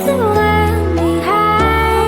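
Background music: sustained synth-like chords over a steady bass, with a melody that glides up and down in pitch.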